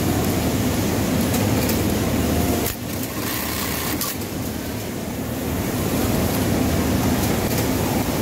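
Steady mechanical hum of a garment workshop: industrial sewing machines and their motors running, dipping briefly about three seconds in.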